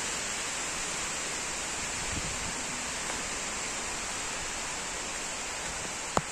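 Steady hiss of rain falling, even and unbroken, with a single sharp click near the end.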